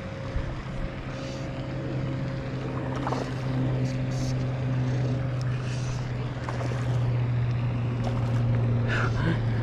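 A steady low mechanical hum, like a small engine or motor running at constant speed, growing slightly louder, with a few faint rustles of fly line being stripped in by hand.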